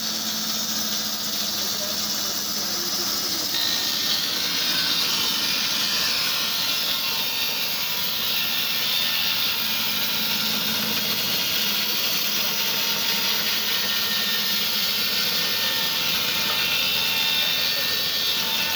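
Log band sawmill running with a steady high hiss and whine, which grows louder and brighter about three and a half seconds in.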